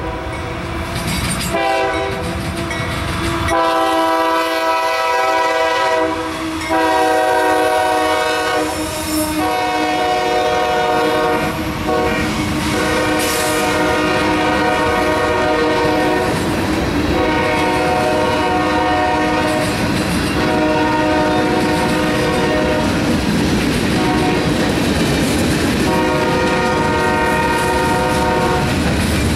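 Freight locomotive horn blowing a run of long blasts with short breaks as the train reaches and passes the crossing, over the rumble and clickety-clack of the freight cars rolling by. The crossing's mechanical and electronic warning bells ring along with it.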